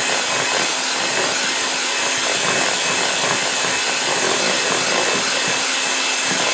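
Electric hand mixer running steadily, its beaters spinning through a creamed butter, sugar and egg cake batter in a mixing bowl.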